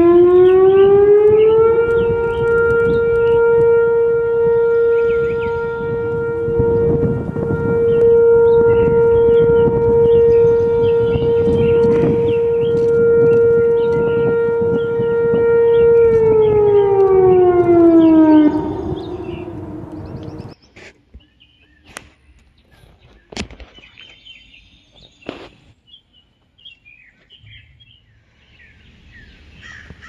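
Federal Signal FS-2000 outdoor warning siren sounding a steady alert tone. The siren rises in pitch for about two seconds, holds one steady tone for about fourteen seconds, then winds down in pitch and stops about twenty seconds in.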